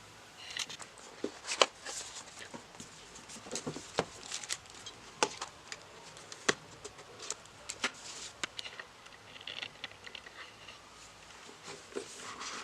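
Handling and opening a smartphone's cardboard retail box: scattered sharp clicks and taps with light rustling in between.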